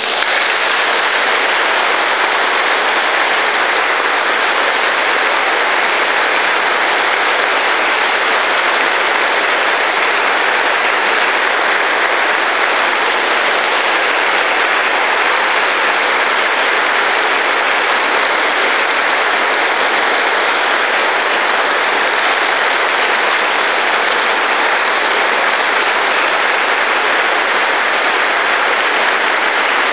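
Audience applauding loudly and steadily, the dense clapping of a large crowd filling a reverberant church.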